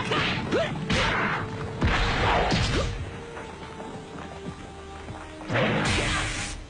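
Anime fight sound effects: a rapid run of whooshes and hits, then a quieter stretch, then a longer rushing blast of energy near the end, over faint background music.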